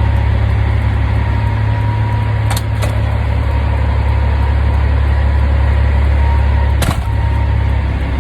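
2002 Peterbilt 387 semi truck's diesel engine running with a steady low drone. Three short sharp clicks break in: two close together about two and a half seconds in, and one near seven seconds.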